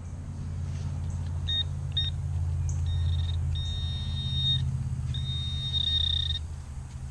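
Metal detector beeping with a high-pitched tone, first in short beeps and then in longer held tones, signalling buried metal in the dug hole (a key). A steady low rumble runs underneath.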